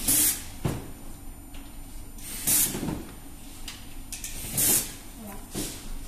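Short, sharp hissing bursts repeating about every two seconds, with a single knock about half a second in.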